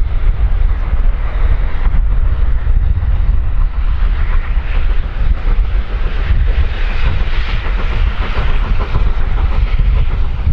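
Steam train running past, its wheel and rail noise swelling to a peak about seven to nine seconds in, under a heavy rumble of wind on the microphone.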